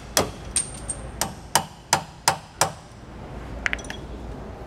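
Hammer blows on steel, driving out a serrated spring eye bolt that is stuck in the leaf spring's eye. A quick run of strikes at about three a second stops about two and a half seconds in, followed by a few light metallic clicks.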